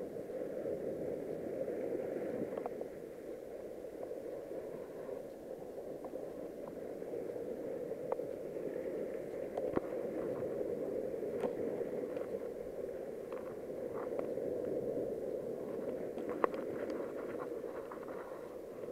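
Steady rush of sea surf washing over a rocky shore, with scattered clicks and scrapes throughout.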